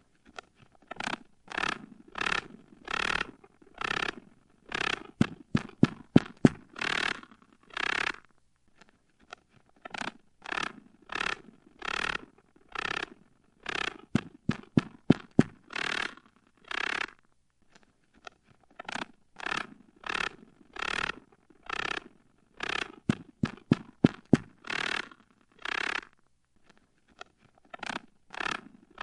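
Spider call sound effect: rasping scrapes repeated about once a second, broken by quick runs of sharp clicks. The pattern comes round about three times with short pauses between.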